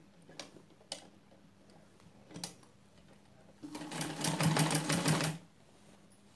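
Black domestic sewing machine stitching a seam in green cotton fabric: a few light clicks, then a short run of under two seconds of rapid, even needle strokes a little past the middle.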